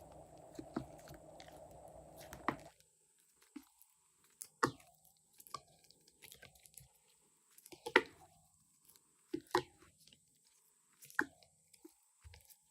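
Slime being handled during slime-making: a series of separate sharp, crunchy crackles and clicks with quiet gaps between them. A steady hum under the first couple of seconds cuts off suddenly.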